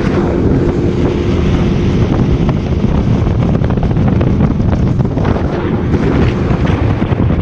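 Heavy wind buffeting the microphone on a small boat running fast, with the outboard motor running at speed and water rushing past the hull underneath. A steady engine note is plain in the first two seconds, then sinks into the wind and water noise.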